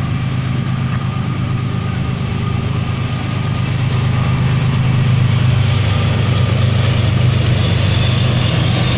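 Norfolk Southern diesel locomotives running with a steady low engine drone that grows louder about halfway through as they approach.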